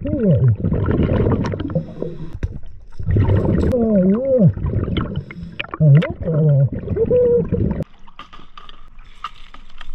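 Scuba regulator exhaust bubbling and gurgling underwater, with the diver's muffled exclamations through the mouthpiece. About eight seconds in it cuts to quieter water and wind at the surface.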